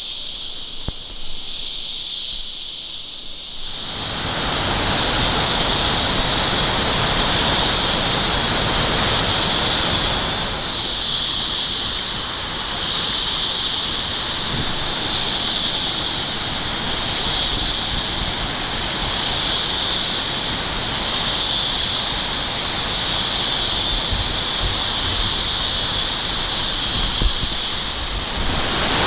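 Waterfall rushing steadily, coming in abruptly about four seconds in. Over it runs a loud, high-pitched buzz that swells and fades about every second and a half throughout.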